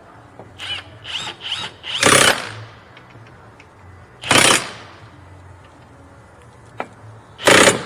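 Electric impact wrench hammering in three short bursts, each under half a second, as it runs down the 14 mm bolts of a rear wheel hub assembly, after a few brief quieter blips of the trigger in the first two seconds.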